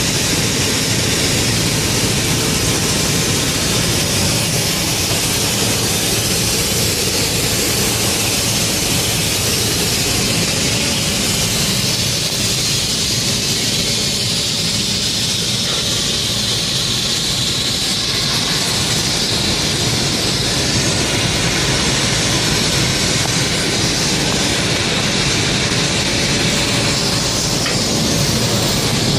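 Flux-cored arc welding on stainless steel: the welding arc gives a steady, unbroken hiss.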